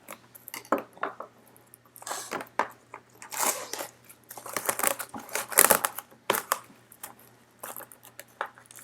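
Irregular clicks, scrapes and rustles of a trading-card box and its packaging being handled and opened, louder in bursts through the middle.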